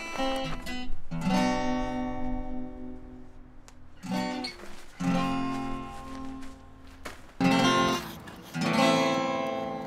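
Acoustic guitar music: strummed chords, each struck and left to ring out and fade, with a new chord every second or few.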